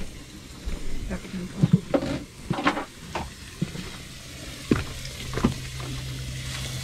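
Outdoor cooking sounds: scattered light clinks and knocks of utensils and dishes over a faint sizzle of food cooking, with a steady low hum coming in about a second in.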